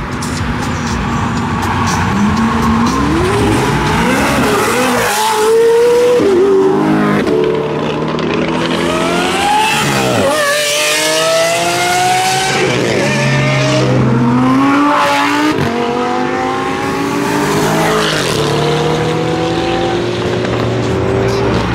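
Several high-performance cars accelerating hard one after another, each engine revving up through the gears. The pitch climbs, drops at each shift and climbs again, over and over.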